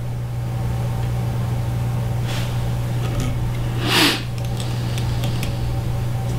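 A steady low hum in a small room. Under it come faint clicks and rustles of hands handling fly-tying tools at the vise, with a brief louder rustle about four seconds in.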